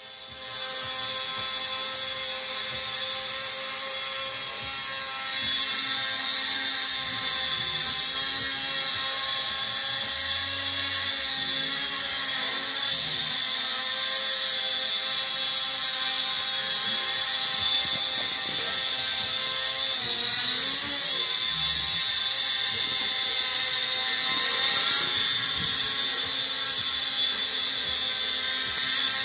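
Blizzard drone's small motors and propellers whining steadily in flight, getting louder about five seconds in, with the pitch wavering briefly around twenty seconds in.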